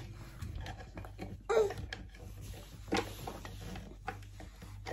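Scattered light knocks and handling sounds from screwdriver work on a wooden baby walker, over a low steady hum.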